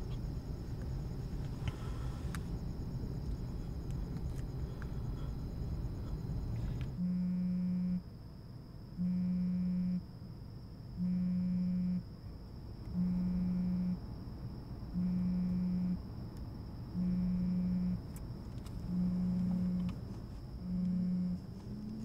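A low rumbling noise for about seven seconds, then it cuts off. A smartphone on vibrate buzzes against a fabric seat with an incoming call, in one-second buzzes about once every two seconds.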